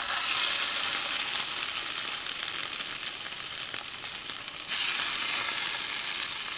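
Strips of fish sizzling as they fry in hot oil, a dense steady hiss that suddenly grows louder again about five seconds in.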